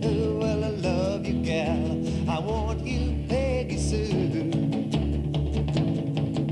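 Rock and roll music: a wavering lead melody over a steady, pulsing bass beat.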